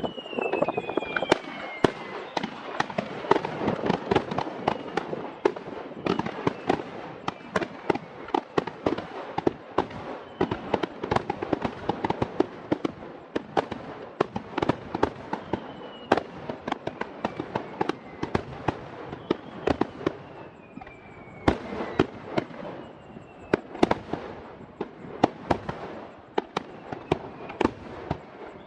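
Aerial fireworks finale: a rapid, continuous barrage of overlapping bangs and crackles, with a few falling whistles from shells.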